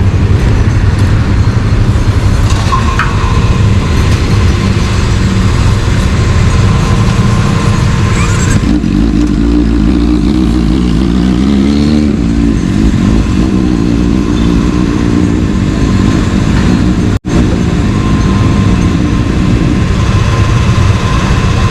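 Motorcycle engine and exhaust running steadily and loudly, with a change in tone about nine seconds in and a brief cut-out near seventeen seconds.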